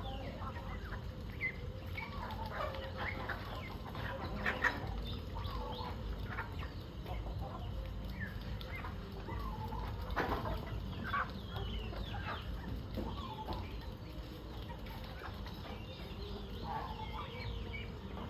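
A flock of chickens clucking and calling at feeding time, many short calls overlapping, with a few sharp flaps or knocks among them.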